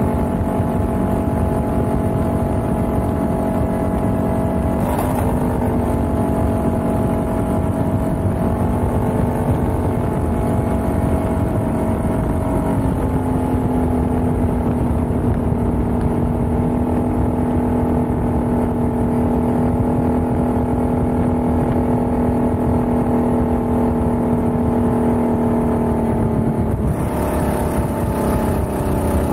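Can-Am XMR ATV engine running at a steady cruise on a gravel road, with tyre and wind noise underneath. The engine pitch rises slightly about halfway through and falls near the end as it slows.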